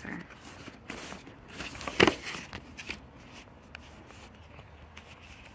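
Small cardboard boxes being handled: light rustles and clicks, with one sharp knock about two seconds in.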